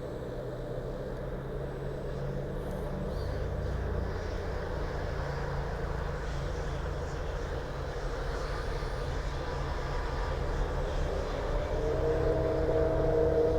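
Radio-controlled construction machine models running: a steady low mechanical rumble, joined about twelve seconds in by a steady electric motor whine.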